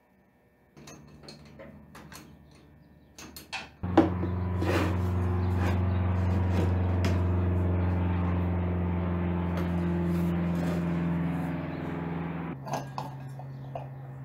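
A steady machine drone with a low hum starts suddenly about four seconds in, runs for about nine seconds and cuts off abruptly, leaving a fainter steady hum. Light clinks and knocks of tools and metal parts come before it and near the end.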